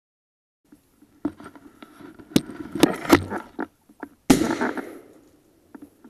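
A single shotgun shot fired at a flushing woodcock about four seconds in, sudden and fading quickly. Before it come several sharp snaps and knocks.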